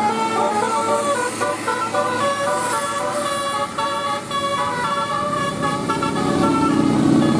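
Bus 'telolet Basuri' musical air horn, an 18-trumpet, nine-note set, playing a quick melody of stepped notes. Near the end the notes thin out and a lower rumble grows.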